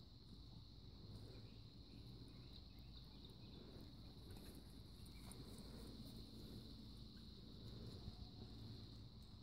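Faint, steady chorus of crickets: a continuous high-pitched trill that never breaks, over a low rumble.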